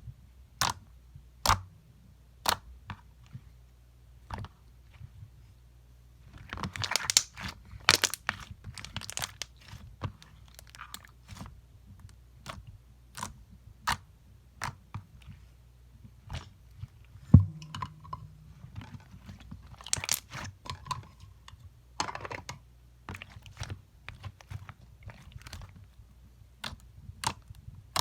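Slime being worked by hand, giving irregular sharp clicks and crackling pops, with denser runs of crackle about a quarter of the way in and again about three quarters in, and one louder thump a little past the middle.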